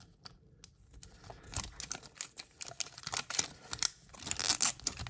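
Plastic toy packaging being torn open and crinkled by hand, in irregular bursts of crackling and tearing that grow busier toward the end.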